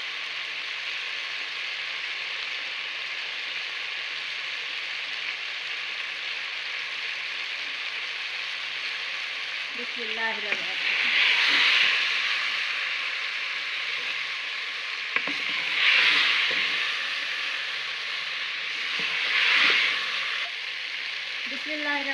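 Cauliflower and potato pieces sizzling in hot oil in a metal pot, a steady frying hiss of dry-frying (bhuna) before water is added. Three times in the second half the sizzle swells louder as a wooden spoon stirs the vegetables.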